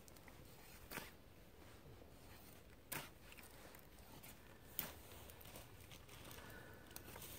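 A knife whittling a wooden stick, faint: three short sharp shaving strokes about two seconds apart.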